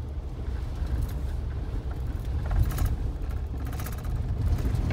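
Pickup truck driving on a wet dirt road, heard from inside the cab: a steady low engine and tyre rumble with a few light knocks and taps from the rough, muddy surface.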